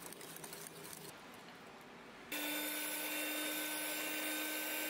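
Electric hand mixer whipping egg whites in a glass bowl: a steady motor whine that starts suddenly about halfway in and is the loudest thing heard. Before it comes a softer stretch of clicking and swishing as the egg-yolk batter is mixed.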